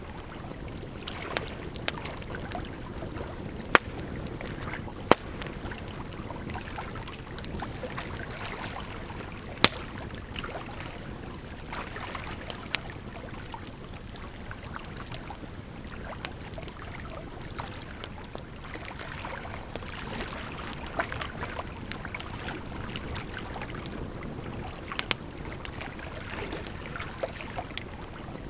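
Firewood crackling and popping with sharp, irregular snaps, over a steady sound of running water.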